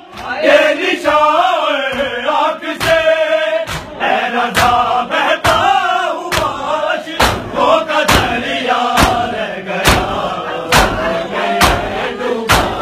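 A group of men chanting a noha (Shia lament) in unison. From about three seconds in, the hand strikes of chest-beating matam fall in time with the chant, a little under one a second.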